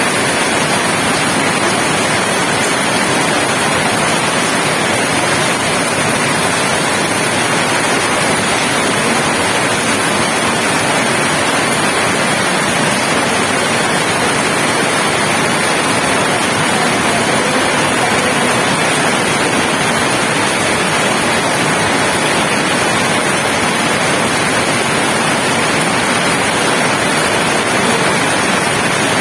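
Steady, heavy rain falling in a yard: a dense, even hiss with no individual drops standing out and no let-up.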